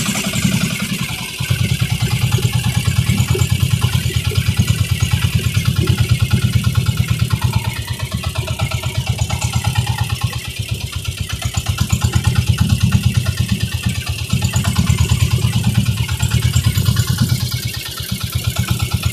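Inboard engine of a motorized outrigger boat (bangka) running under way, a rapid low pulsing throb that eases off briefly a few times, over the hiss of water and wind.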